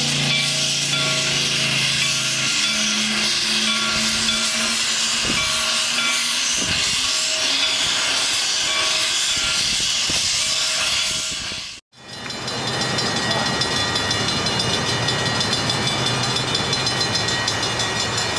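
Steam locomotive pulling its train of coaches, with a steady hiss of steam vented at the cylinders. About twelve seconds in the sound drops out briefly, then gives way to the steady running noise of a moving train.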